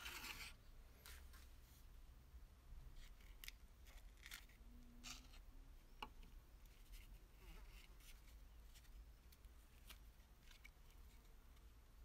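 Faint handling sounds of a stiff, dirt-caked leather lighter pouch and a metal Zippo lighter being turned over in the hands: scattered light rustles, scrapes and small clicks, with one sharper click about six seconds in.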